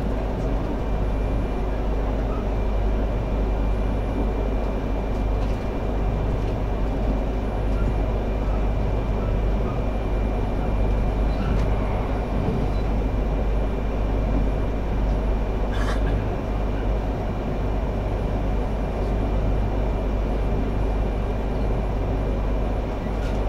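Steady running rumble of a Yamagata Shinkansen Tsubasa train, heard from inside the passenger cabin, with a faint steady high tone and one sharp click about two-thirds of the way through.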